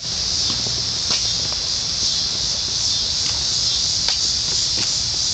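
Cicadas droning in a steady, dense high-pitched chorus, with a few faint short ticks scattered through it.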